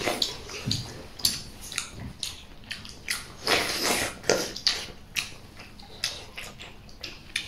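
A person eating boiled dumplings from a bowl of hot broth: wet slurps and sips from the bowl's rim, with chewing and small wet mouth clicks, the loudest slurps about three to four seconds in.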